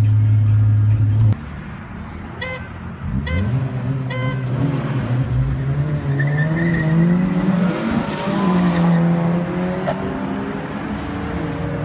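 Inside the cabin of a boosted Honda Civic Ferio, its engine drones steadily at cruise, then cuts off abruptly. Three short car-horn toots follow, then a car engine accelerating hard with a rising pitch, which eases off briefly and pulls again.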